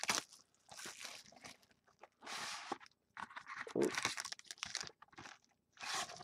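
Plastic shrink-wrap being torn off a trading-card box and crinkled in irregular bursts, with the cardboard box opened and a foil-wrapped card pack handled.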